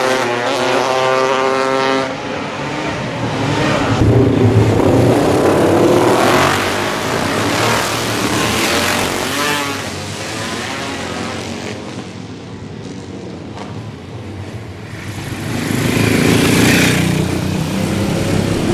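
Classic racing motorcycles running at high revs past a street circuit, one after another. The engines swell as each bike passes and fade away, with a quieter lull about two-thirds in before another bike approaches near the end.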